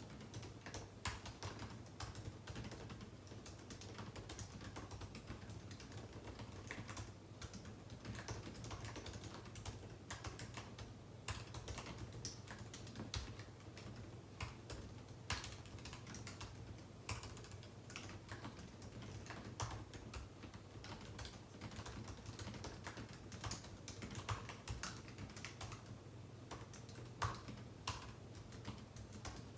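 Typing on a computer keyboard: a continuous, irregular run of key clicks over a steady low hum.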